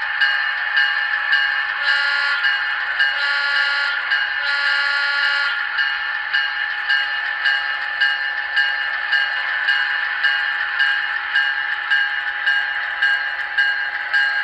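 HO scale diesel switcher's sound decoder: the engine runs steadily with the bell ringing about twice a second, and three short horn blasts sound about two, three and a half and five seconds in, the horn signal for backing up.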